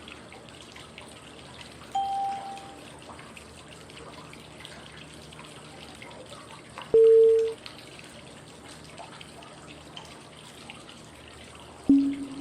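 Flowing-water white noise, with short, clean cue tones five seconds apart that mark the phases of 5-5-5 breathing. A higher tone comes about two seconds in, a lower and louder one about seven seconds in, and a lower one still near the end.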